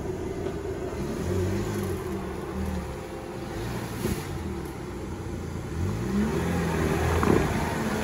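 Lada Niva engine revving in surges as the car crawls over rough forest ground, with a single sharp knock about seven seconds in.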